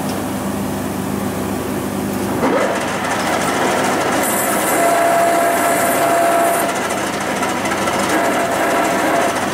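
Metal lathe spinning an automatic transmission's torque converter while the cutting tool cuts through its outer seam to open the converter. About two and a half seconds in, the sound changes, gets a little louder, and a thin steady whine comes in.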